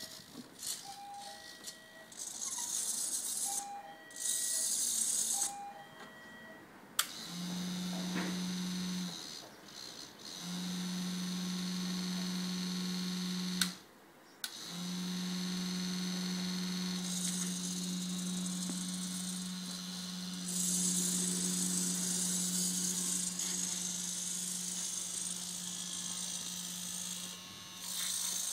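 Radio-controlled model CAT tandem road roller: a few short two-note electronic beeps in the first six seconds, then a steady low electric hum from about seven seconds in, cut off twice briefly, with the whir of its small drive motor and gears rising and falling over it.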